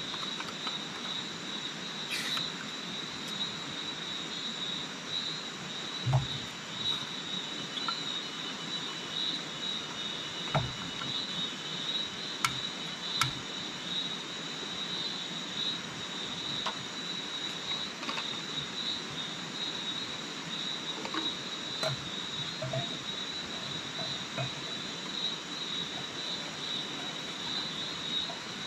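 Steady chorus of forest insects, a constant high-pitched drone, with scattered clicks and knocks from a camp gas stove, canister and pot being handled.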